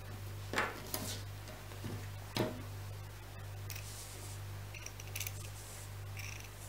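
Dressmaking scissors snipping through stretch fabric, several short cuts from a little past halfway. Before them come two sharp handling knocks, and a steady low hum runs underneath.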